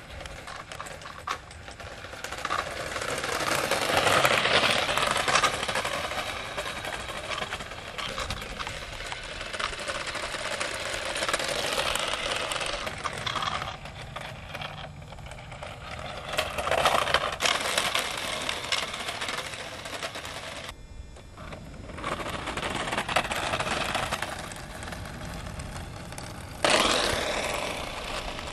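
A radio-controlled car's electric motor and gears whirring in several separate runs, getting louder and quieter as the car speeds up and slows down. There is a short break about 21 seconds in, and the last run starts suddenly near the end.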